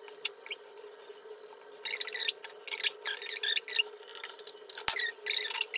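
Scratchy rustling of hair being handled and tied up, in a few short bursts, with one sharp click about five seconds in. A steady low hum runs underneath.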